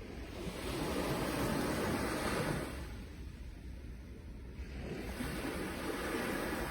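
Sea waves washing in and drawing back: one wave swells over the first few seconds and fades, and the next rushes in about five seconds in.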